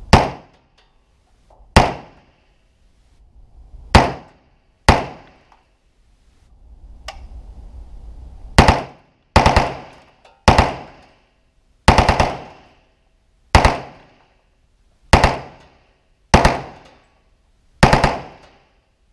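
Heckler & Koch UMP45 submachine gun in .45 ACP firing about a dozen short bursts of automatic fire, spaced irregularly one to two seconds apart. Each burst rings briefly in the enclosed shooting lane.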